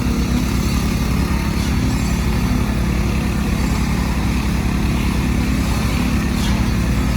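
An engine running steadily at an even pitch, a constant mechanical drone of concrete-pouring machinery.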